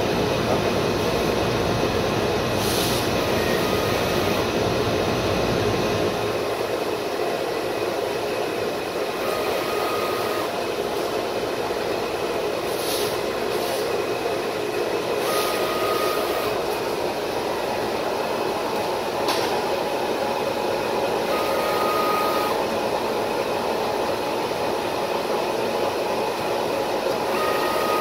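Flatbed digital cutting table running steadily while its cutting head works a printed board, with a short high tone about every six seconds and a few brief hisses.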